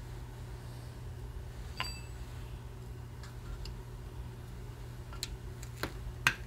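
Scattered light metallic clicks and taps of a screwdriver and hand tools against the steel housing of a 12-volt Ford tractor starter: one clink about two seconds in rings briefly, and the sharpest tap comes near the end, over a steady low hum.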